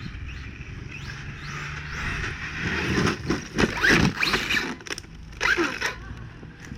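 Brushless electric RC car running on a 6S battery, its motor whining up and down in pitch in hard bursts about two to five seconds in, with a short burst again near the end, over a steady low rumble.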